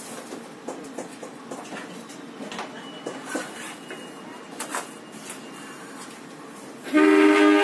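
Railway station background with scattered clicks and knocks. Near the end a loud two-tone train horn suddenly starts blowing and holds steady.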